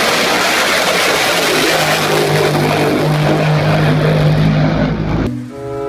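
Racing powerboat's engine running at high speed as the boat tears past, a dense loud rush with a steady engine tone underneath; it cuts off abruptly near the end.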